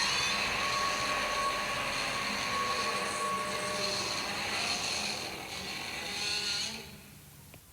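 Godzilla roar sound effect: a long, harsh, screeching roar lasting about seven seconds, which dips briefly and swells once more before cutting off near the end.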